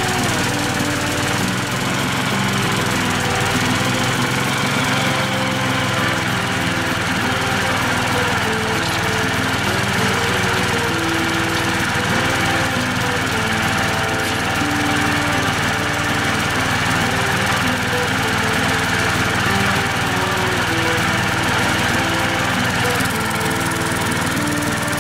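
Small outboard motor running steadily in a water test tank, with its engine speed wavering slightly.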